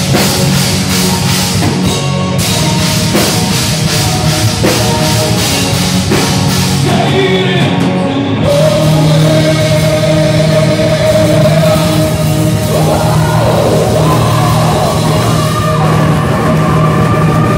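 Live metal band playing loud: drums, distorted electric guitars and a singer. About eight seconds in, the drum strokes and cymbals stop and long held notes ring on.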